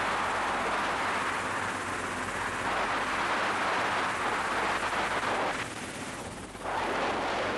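Helicopter in fast, low flight heard from a camera mounted on the aircraft: a steady rush of wind buffeting the microphone over the engine and rotor noise, briefly quieter for about a second near the end.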